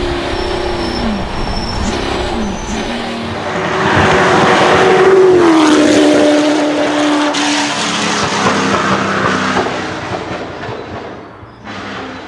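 Mid-mounted Ford V8 of a 1965 Ford GT40 race car running at speed on track. The revs drop twice in the first two seconds, the sound grows louder about four seconds in and its pitch falls about a second later, and it fades away near the end.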